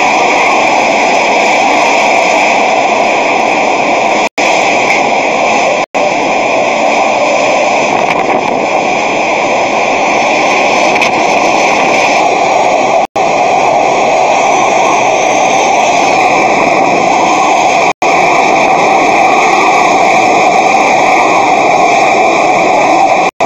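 Hurricane-force wind blowing with driving rain, a loud, steady noise that drops out for an instant a few times.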